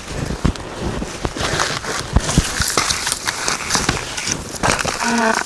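Irregular crunching, snapping and rustling of pine boughs being handled and piled onto a snow-shelter wall, mixed with steps crunching in deep snow.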